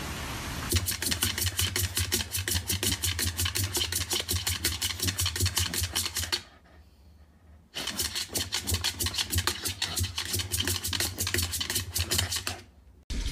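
A dog's paws rapidly scrabbling and tapping against a wall and wooden floor, about nine sharp clicks a second with dull thumps under them. The scrabbling starts about a second in, breaks off for about a second past the middle, then resumes.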